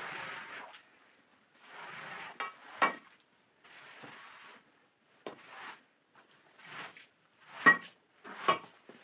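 Iron scraper dragged in repeated strokes across a wet carpet, about seven rasping swishes that push water off the pile. Sharp metallic clacks about three seconds in and twice near the end, the loudest near the end.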